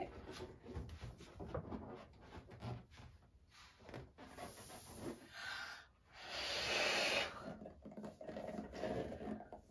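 Hands rubbing and handling a large inflated latex balloon, with short scratchy squeaks and brushing sounds, then two longer hissing rushes of about a second and a half each around the middle.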